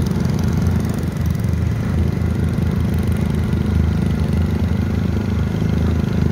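Small petrol engines running steadily while driving along a road: a continuous low rumble that holds the same speed throughout.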